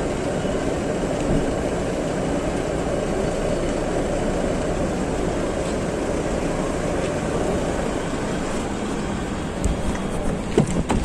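Steady noise of motor vehicles close by, with a few knocks of handling near the end.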